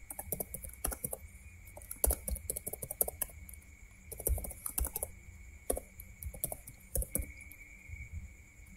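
Computer keyboard being typed on: an irregular run of key clicks, with a faint steady high-pitched whine underneath.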